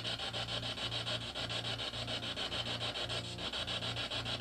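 Steady scratchy crackling that pulses about ten times a second, over a low hum that drops out about twice a second.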